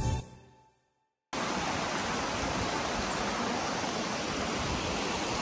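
Background music fades out in the first second, then after a brief silence a shallow stream starts running steadily over rocks.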